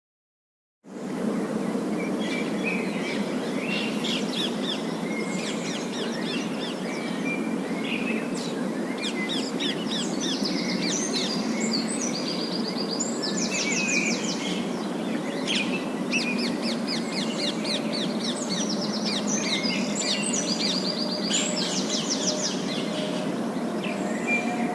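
A flock of parakeets chirping and chattering, with many short calls and quick trills, over a steady background hiss. It starts after about a second of silence.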